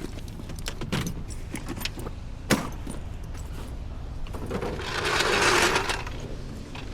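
Metal clinks and knocks of tools and wheel hardware being handled during a roadside tire change, with one sharp knock about two and a half seconds in and a louder rushing noise lasting over a second past the middle, over a steady low hum.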